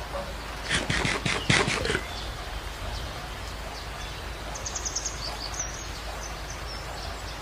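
A lion chewing raw meat, a quick run of sharp crunches a little under a second in that lasts about a second. A short, rapid high bird trill comes about halfway through, over a steady low background hum.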